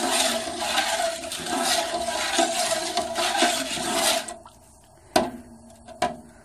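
Liquid sauce sloshing and swirling in a large pot as it is stirred to dissolve the shrimp paste. The sloshing stops about four seconds in, and two sharp knocks follow.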